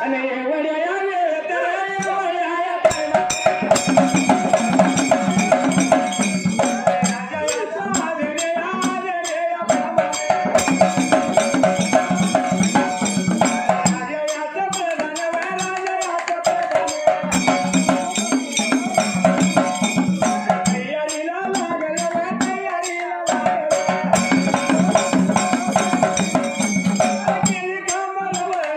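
Dhangari ovi folk music: male voices singing to a large dhol drum and small hand cymbals, amplified through the stage sound system. Sung lines alternate with louder, fast drum-and-cymbal passages, roughly every three to four seconds.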